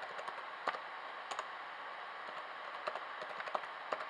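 Keys tapped on a laptop keyboard, typing in a password: scattered single keystrokes at an uneven pace over a steady faint hiss.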